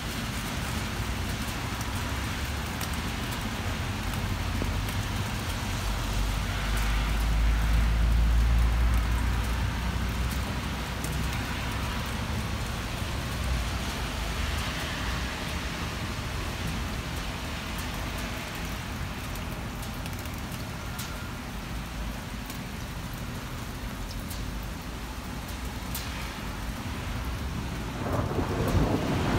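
Heavy rain falling steadily, with a low rumble of thunder swelling and fading about a quarter of the way through, and another peal of thunder starting near the end.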